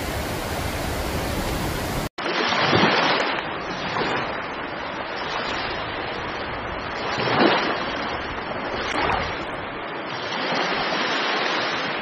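Rushing floodwater as a steady roar, then, after a sudden break, storm waves breaking on a seawall. The surf swells and crashes a few times, loudest about three and seven and a half seconds in.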